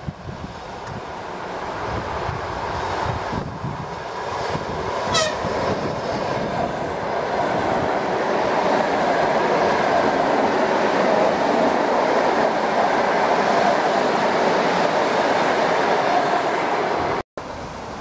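Electric multiple-unit commuter train passing close by: rail and wheel noise from the cars grows louder and stays loud as the carriages go past, then cuts off abruptly near the end.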